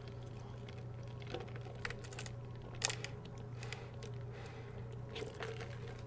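Soft swallowing gulps and small wet mouth clicks of someone drinking soda through a straw, a few scattered clicks over a faint steady hum.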